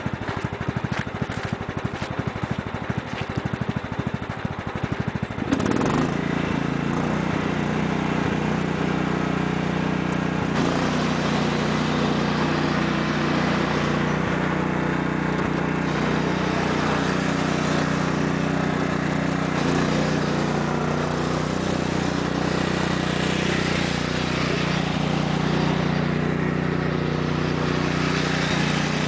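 14 HP Kohler OHV single-cylinder engine of a 1993 Sears Craftsman lawn tractor idling with rapid, even firing pulses. About five seconds in the throttle is opened and it runs steadily at high speed as the tractor is driven over the ice.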